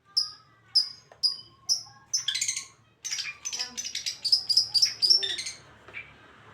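A songbird singing: short, high whistled notes repeated about twice a second, then a quick rush of rapid chattering notes that dies away near the end.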